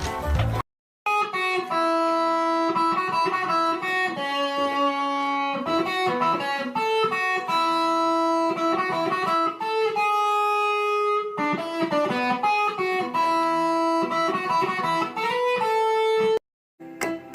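Background music: a plucked guitar playing a melody of clear, held notes, starting about a second in after a brief silence and breaking off near the end.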